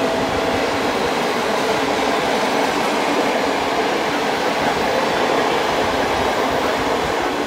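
PKP Intercity passenger coaches rolling past along the platform: a loud, steady rolling noise of steel wheels on the rails.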